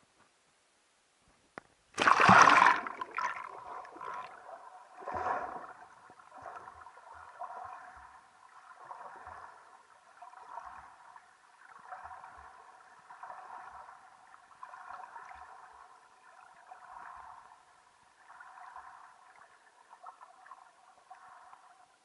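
A camera goes under the lake surface about two seconds in with a loud splash, then picks up muffled underwater gurgling and sloshing that swells and fades roughly once a second.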